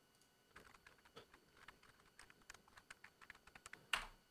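Quiet typing on a computer keyboard: a fast, irregular run of keystrokes, ending in one louder keystroke just before the end.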